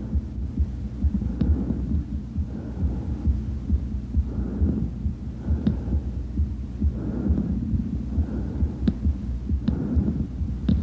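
Stethoscope recording of bronchial breath sounds over a steady low hum. The breaths swell and fade every second or so, with a few faint clicks. This is the loud, high-pitched tubular breathing normally heard over the manubrium of the sternum, where expiration is longer than inspiration.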